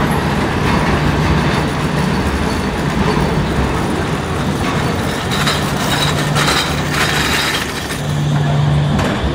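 Street tram approaching along its rails and passing close by, its running noise carrying a steady low hum that grows stronger in the second half as it goes past.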